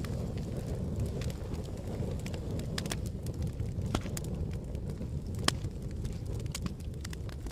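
Campfire burning with a steady low roar of flames and irregular sharp crackles and pops from the burning wood, the loudest pop about five and a half seconds in.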